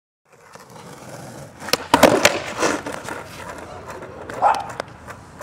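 Skateboard wheels rolling on asphalt, with the board clattering and knocking on the pavement. The loudest knocks come about two seconds in, and another comes a little after four seconds.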